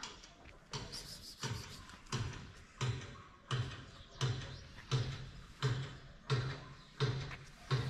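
Footsteps walking at a steady pace on paving: about eleven dull steps, a little under one and a half a second.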